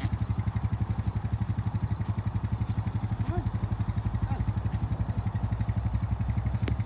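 An engine running steadily with an even, fast low throb.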